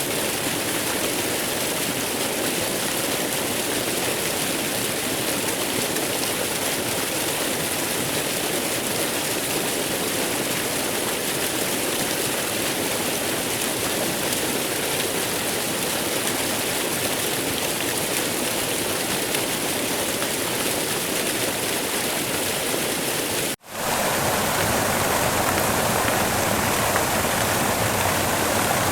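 Waterfall: a steady rush of falling water. About three-quarters of the way through it cuts out for an instant, then comes back a little louder.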